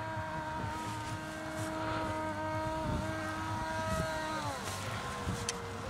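Electric motor and propeller of an Elektro-UHU RC motor glider whining steadily in flight. About four and a half seconds in, the pitch drops and the whine goes fainter as the motor slows. Low wind rumble on the microphone underneath.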